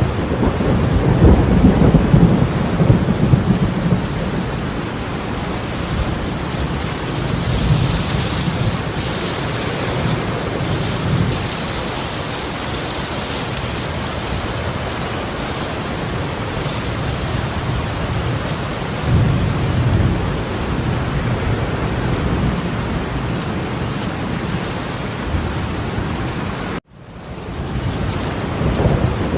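Torrential rain pouring down steadily, with deep rumbles swelling up a few times underneath. The sound cuts out abruptly for a moment near the end and fades back in.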